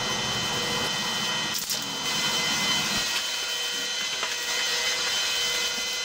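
A motor running steadily with a whine and a hiss, a little thinner in the low end from about three seconds in.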